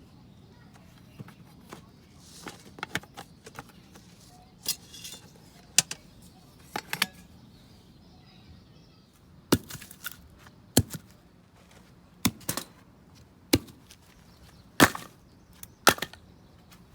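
Firewood being split by batoning: a knife's spine struck with a wooden baton, giving a run of sharp woody knocks. They are light and irregular at first, then louder and about every second to second and a half.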